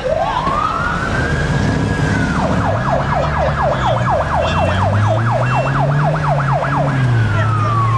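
Emergency vehicle siren: a wail rising in pitch and holding, then switching to a fast yelp of about four sweeps a second, then going back to a slow falling wail near the end. A vehicle engine runs underneath.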